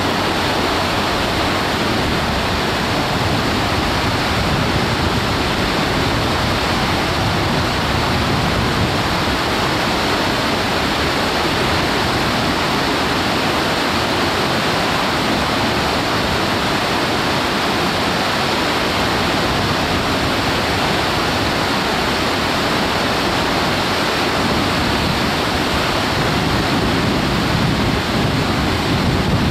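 River whitewater rushing over boulders, a loud, steady rush of churning water that never lets up.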